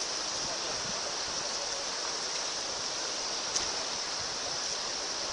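Steady rushing hiss of floodwater running across a road, with faint distant voices and a single short click about three and a half seconds in.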